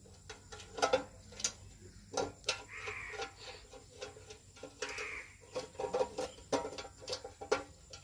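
A small screwdriver working the screws of a plastic switch-box lid: irregular sharp clicks and taps of the blade on screw heads and plastic. Twice a brief, fainter background sound.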